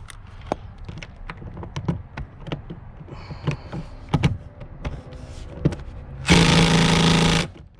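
Clicks and knocks of tools and seat-belt hardware being handled, then about six seconds in a power tool with a Torx 50 bit runs loudly for about a second, driving a seat-belt anchor bolt, and stops suddenly.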